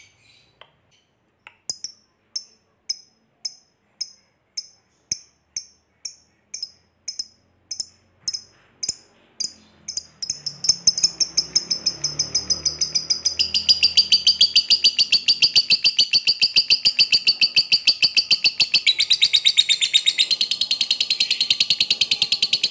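Yellow-collared lovebird singing. It starts with short, high chirps about two a second, then about ten seconds in breaks into a long, rapid chattering trill (the 'ngekek panjang') that runs on loudly.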